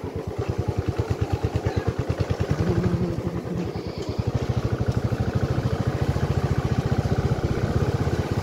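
Motorcycle engine running as the bike rides slowly along, with a steady, even pulsing beat.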